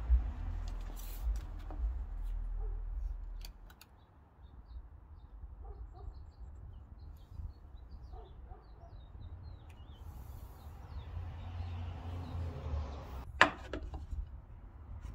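Handling noise of a tape measure and a metal combination square on a pine board: light clicks and rubs, with a low rumble for the first few seconds. Faint bird chirps sound in the quieter middle, and one sharp click near the end.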